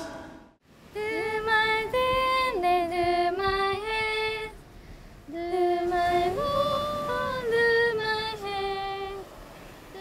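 A female voice singing a slow melody in two phrases of about four seconds each, with long held notes that slide from one pitch to the next.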